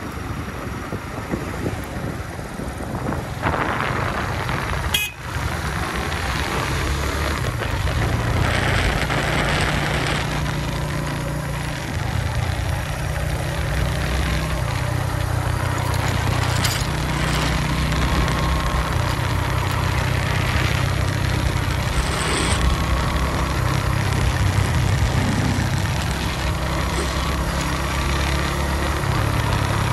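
Suzuki GS150 motorcycle's single-cylinder four-stroke engine running steadily on the move, under an even hiss of wind and road noise.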